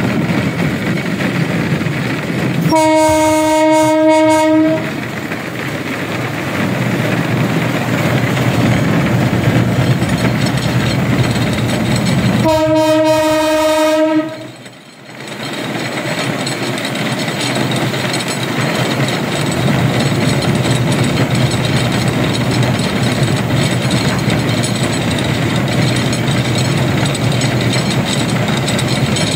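A railcart running steadily along the rails, its horn sounding twice: a blast of about two seconds about three seconds in, and another about twelve seconds in.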